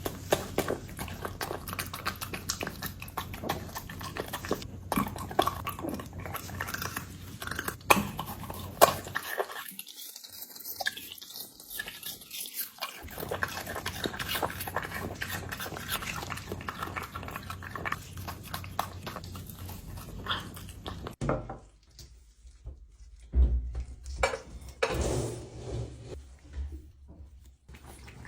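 A dog chewing and crunching food, with many quick, irregular crunches and clicks. The chewing drops away for a few seconds near the middle and is sparser near the end.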